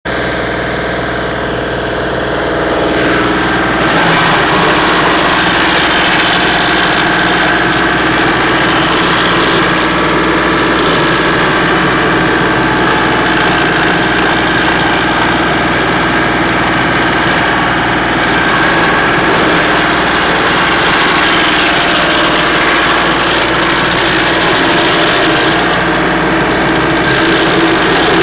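Rayco RG1642 stump grinder's engine running steadily, getting louder about three seconds in and staying level after.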